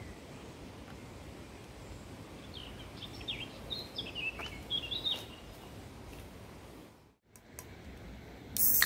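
A small bird sings a quick run of short, high chirping notes for about three seconds, over a steady background hiss. Near the end the sound drops out for a moment, then comes a short loud burst of noise.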